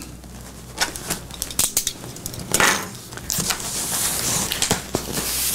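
Cardboard shipping box handled along a freshly cut tape seam: scattered knocks and scrapes of hands on the cardboard, with a longer rasping scrape a little past the middle as a hand slides along the top edge.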